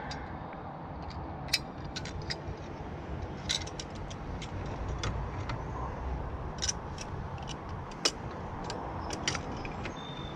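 Scattered sharp metallic clicks and clinks of hand tools and pipe fittings being handled, irregularly spaced, over a steady low background rumble.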